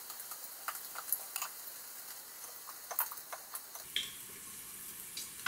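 Hot sesame oil in a multicooker pot in sauté mode, crackling with scattered sharp pops over a faint sizzle. The background changes slightly about four seconds in.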